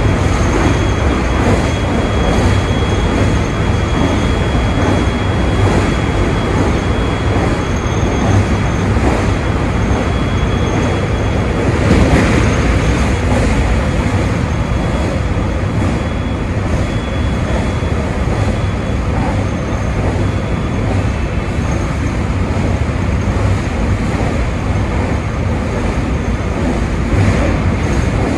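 JR West 223-series 2500 electric multiple unit running at speed: a steady rumble of wheels on rail with the traction motors under the floor. A thin steady high whine sits over it for the first half, and the noise swells briefly about twelve seconds in.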